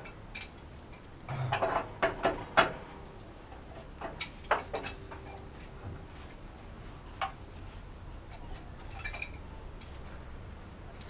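Scattered metallic clicks and clinks of a wrench and pliers working the nut of a water heater's flexible supply connector, in small clusters with pauses between.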